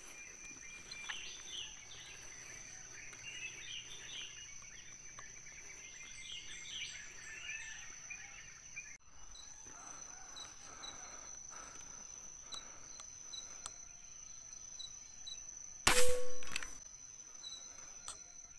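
A single rifle shot near the end: a sharp crack with a short ringing tail. It lies over a steady high-pitched insect drone, with small bird chirps in the first half.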